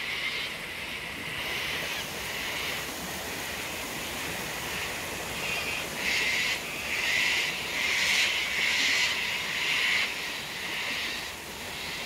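A flock of cockatoos screeching as they fly over, a run of harsh calls coming thickest from about halfway through, over the steady rush of a waterfall.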